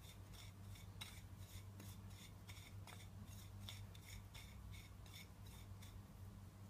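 Fingers rubbing and scraping a dry spice mix around a plate: faint, rhythmic scratching at about three strokes a second that stops near the end.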